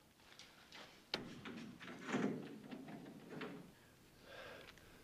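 A sharp click about a second in, then scuffing, knocking and rustling sounds, the loudest a little after two seconds.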